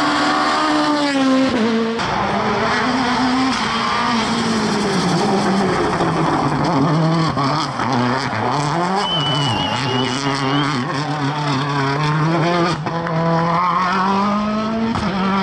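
Rally cars driven hard: engines revving high, their pitch climbing and dropping again and again through gearshifts and lifts, including a Citroën DS3 WRC's turbocharged four-cylinder as it slides through a bend. A few sharp cracks come in the second half.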